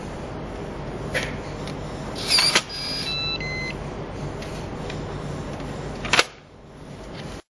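Yale YDM3109 digital door lock reading a card key: a click and a brief rattle, then a short run of three electronic beep notes as the lock accepts the card and unlocks. A sharp click comes about six seconds in as the lever handle is worked.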